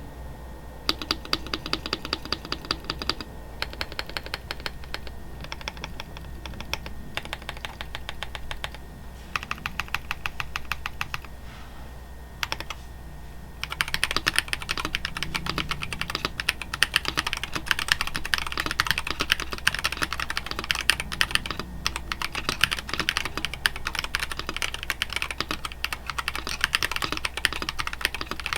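Ikki68 Aurora mechanical keyboard with stock DiviniKey Oni switches, a polycarbonate plate and PBT keycaps being typed on. For roughly the first half it comes in short runs of keystrokes with brief pauses between them, then it turns to steady fast typing to the end.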